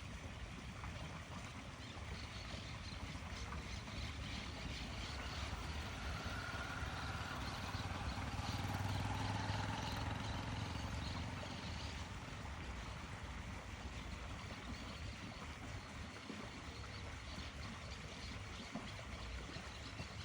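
Steady outdoor background noise with a low engine hum that swells and fades about halfway through, like a motor passing.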